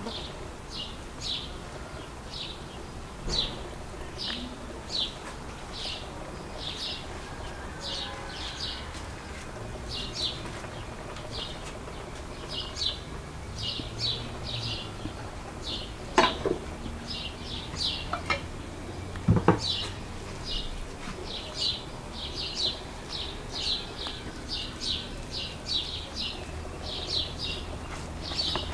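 A small bird chirping over and over, short high notes about one and a half times a second. Two sharp knocks come about two thirds of the way through and are the loudest sounds.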